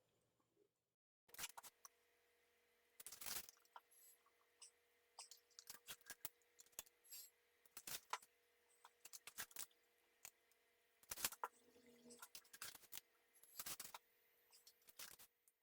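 Quiet, irregular light clicks and taps of small metal parts and tools being handled, starting about a second in.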